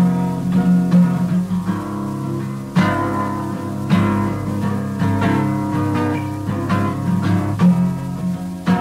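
Acoustic guitar music: plucked notes ringing over a steady low bass note, with sharper plucks about three and four seconds in.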